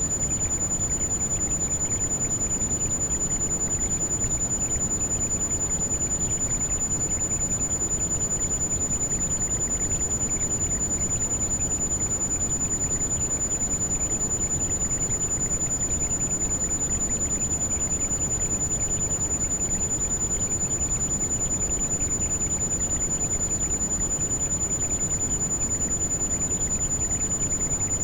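Heavy rain falling steadily, with a continuous very high pure tone mixed in over it: a tinnitus-like ringing layered on rain noise as a tinnitus-masking sound.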